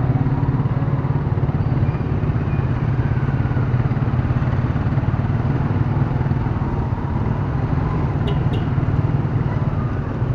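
Small motorcycle engine running steadily while riding through town traffic, with road noise from nearby motorcycles and tricycles. A couple of faint clicks come about eight seconds in.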